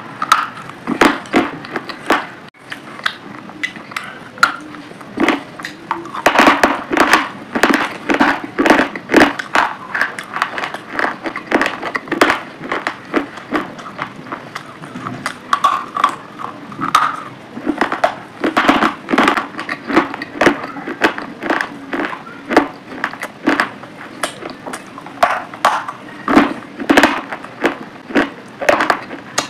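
Close-up biting and crunching chews of a hard, chalky stick, a run of sharp snaps and crackles coming several times a second, with brief pauses between bites.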